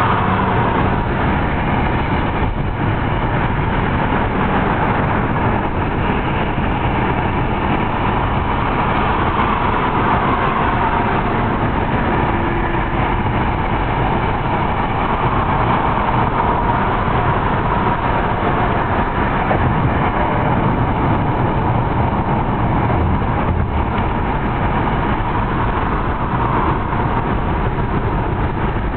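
Steady road noise of a car driving at highway speed, heard from inside the cabin.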